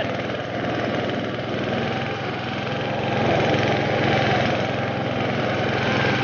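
Lawn tractor engine running steadily as the tractor drives through snow, a little louder from about three seconds in.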